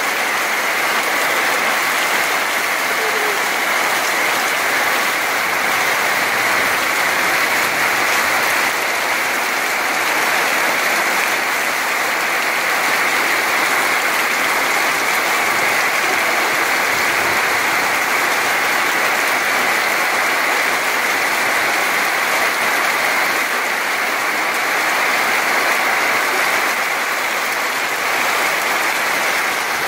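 Heavy downpour of tropical rain, a steady, even hiss of rain falling on the ground and surroundings.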